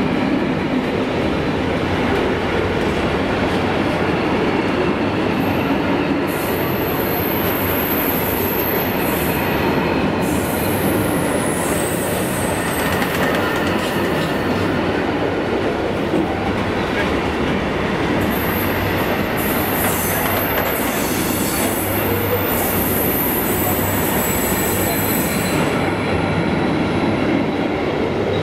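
A freight train's curtain-sided wagons rolling steadily past: a continuous rumble of steel wheels on rail, with high-pitched wheel squeal coming and going from about six seconds in.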